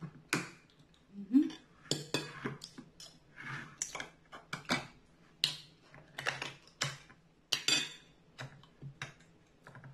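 Irregular sharp metallic clicks and scrapes of an aluminium drink can's pull tab being pried and worked open by hand, with a short rising hum about a second in.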